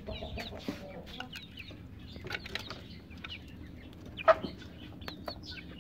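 Chickens clucking: short, scattered calls, with one sharp, louder sound about four seconds in.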